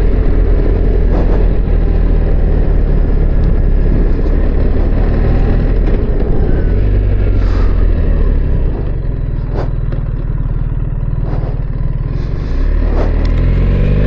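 2024 BMW R1300GS's boxer-twin engine running on the road, heard with wind noise through a microphone inside the rider's helmet. About nine seconds in the engine note eases off, then near the end it rises again as the bike accelerates.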